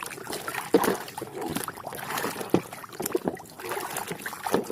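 Water splashing and sloshing, with short knocks of hard plastic, as a muddy toy vehicle is washed by hand.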